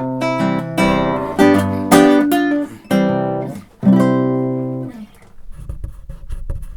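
Acoustic guitar playing plucked notes and strummed chords, closing on a final strummed chord about four seconds in that rings out and fades, followed by faint rustling.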